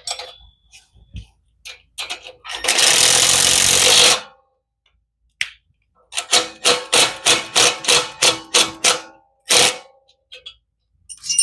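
Tool work on a mini bike's chain tensioner. A power tool runs for about a second and a half, then a little later about ten quick, evenly spaced mechanical strokes follow, roughly three a second.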